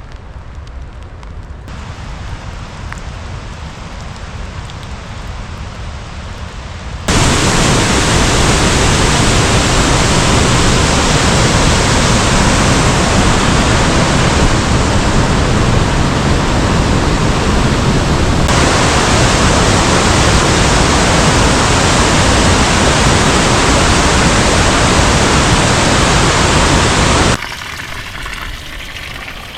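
Rushing water of Pistyll Rhaeadr waterfall, in spate after heavy rain: a steady rush for the first several seconds, then a much louder continuous roar of falling water that cuts in suddenly about seven seconds in and drops back just as abruptly near the end.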